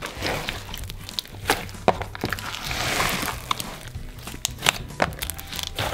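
A large mass of slime being squished and kneaded by hand in a plastic tub, giving irregular wet pops, clicks and squelches.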